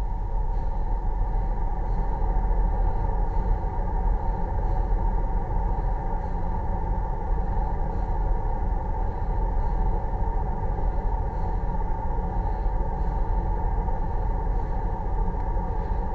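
Car on the move, heard from inside the cabin: a steady engine and road-noise rumble that holds even throughout.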